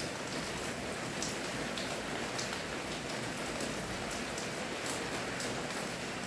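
Steady rain falling, an even hiss with scattered sharper drips landing close by.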